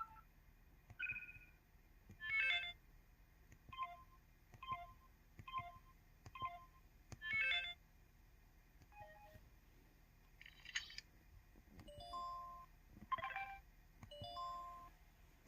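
MS700 mobile phone's 'Digital2' menu and button sounds: a series of short electronic beeps and chimes of varying pitch, each separate, roughly one a second.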